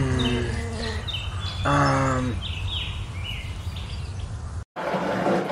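Outdoor nature ambience: birds chirping again and again, with two low drawn-out animal calls about two seconds apart, the first falling in pitch, over a steady low rumble. Near the end the ambience drops out for a moment and a hissier background takes over.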